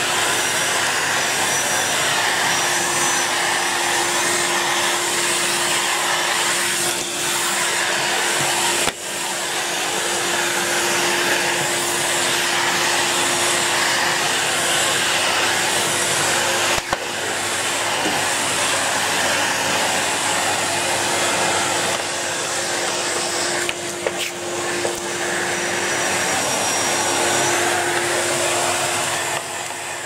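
Henry cylinder vacuum cleaner running steadily, a constant motor hum with a steady whine in it, while its floor tool is pushed over a wooden floor. A few brief clicks come through.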